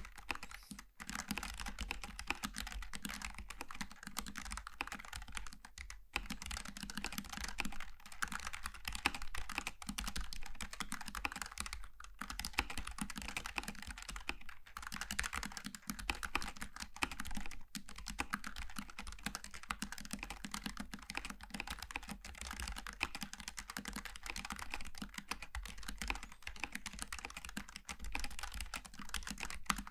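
Fast, continuous typing on a Logitech G915 TKL low-profile mechanical keyboard with GL Tactile switches, a dense stream of key clicks with a few brief pauses.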